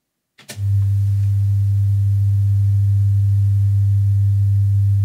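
A computer-generated 100 Hz sine-wave test tone: one steady, low-pitched hum that begins about half a second in with a faint click.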